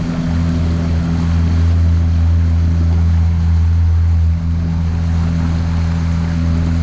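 A motorboat's engine running steadily at cruising speed, a constant low hum, with water rushing along the hull. The engine note dips briefly about four seconds in.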